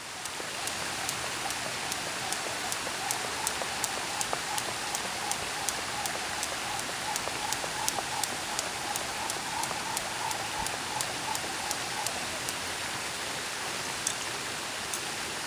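Jump rope ticking against a concrete path about two and a half times a second, over the steady rush of a small waterfall; the ticks stop about three-quarters of the way through.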